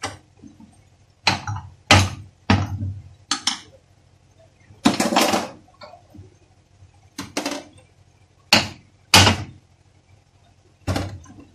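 Sharp metal clanks and knocks of a Toyota Passo steering rack being shifted, clamped and lifted against a steel bench vise: about ten separate strikes, with one longer clatter about five seconds in.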